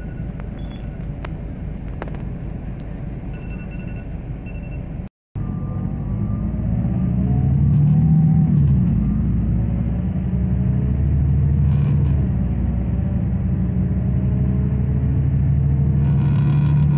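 Bus engine and road rumble heard from inside the passenger cabin as the bus drives along. The sound cuts out for a split second about five seconds in. The engine note then rises and grows louder as the bus accelerates, before settling into a steady run.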